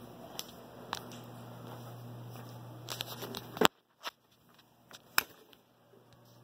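Steady low hum with scattered light clicks and taps. A sharp click comes a little past the middle, and then the hum stops and it goes nearly quiet, with a few faint clicks.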